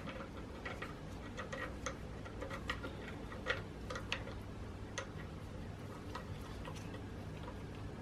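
Light, irregular metallic clicks and clinks of a new BMW N47 timing chain being worked by hand over its sprockets, busiest in the first five seconds, over a steady low hum.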